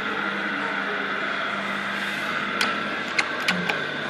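Steady mechanical hum with a high whine, with a few sharp clicks about two and a half to three and a half seconds in.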